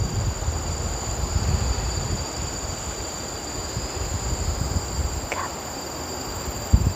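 Insects droning steadily in two high, unbroken tones, over an irregular low rumble, with a couple of knocks near the end.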